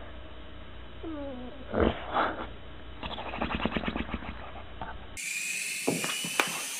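A sleeping bulldog-type dog making sleep sounds: a falling whimper, two short muffled woofs, then a rapid fluttering snore through slack lips. Near the end it changes abruptly to a high steady whine with a few sharp clicks, from a small toy quadcopter.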